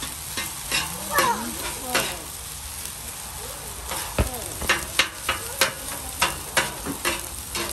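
Fried rice sizzling on a flat-top griddle while two metal spatulas chop and toss it, clicking and scraping against the griddle plate. The spatula taps come more quickly in the second half.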